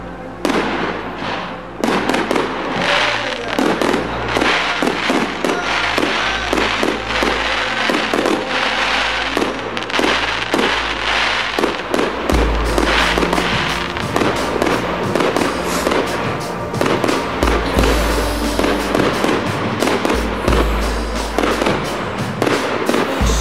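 Aerial fireworks bursting in quick succession, a dense run of sharp bangs and crackles, with music playing underneath.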